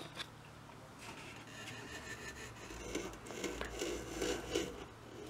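Faint scraping and rubbing with a few light clicks as the opened head of a moving-head stage light is handled and turned by hand.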